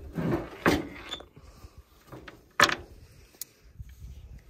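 Clunks and rattles of a Coleman double stove's metal case and its buckled strap being handled and taken out, with a couple of sharp knocks, the loudest about two and a half seconds in, and a light click after it.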